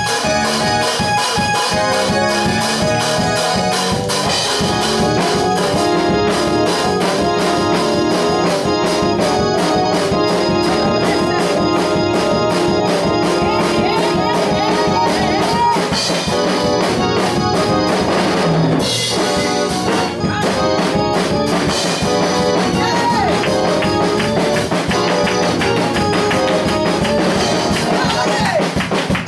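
Praise music on an electronic keyboard over a steady drum beat, with brass-like tones in the mix.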